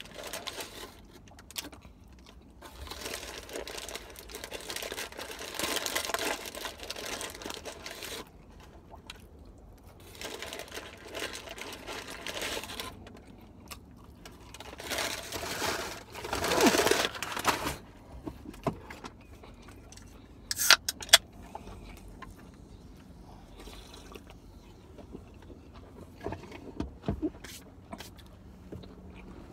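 A person eating close to the microphone: chewing in several stretches of a few seconds each, with a few sharp clicks about twenty seconds in.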